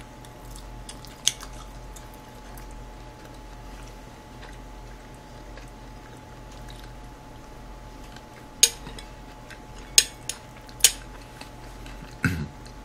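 Metal spoon clinking against a dish while eating potato salad: one click about a second in and three sharper clicks about a second apart near the end, with quiet chewing in between. A faint steady hum runs underneath.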